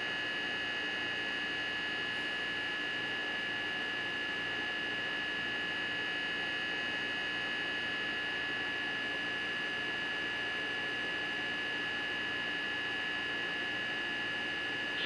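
A steady electrical hum with a thin high whine, unchanging in level and pitch throughout.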